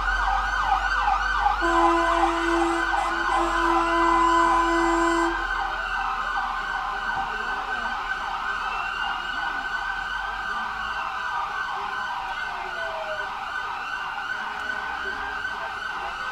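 Emergency vehicle sirens sounding, several overlapping in fast yelping sweeps with slower wails, and a steady horn blast of about three and a half seconds near the start. The sirens gradually get quieter as they move off.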